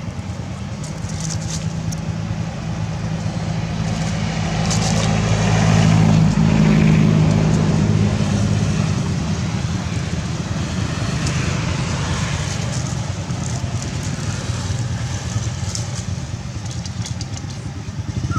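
A motor vehicle engine running steadily, swelling louder about five seconds in and then easing off, with a few faint high clicks over it.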